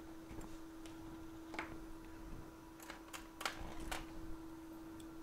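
Light clicks and taps of small tools at a microsoldering bench, a few close together about three to four seconds in, over a steady faint hum.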